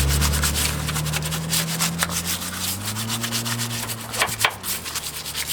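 A cheap brush scrubbing the top of a car battery wet with baking-soda water, in quick repeated scratchy strokes, to clean acid residue off it. A low hum runs underneath and rises in pitch about halfway through.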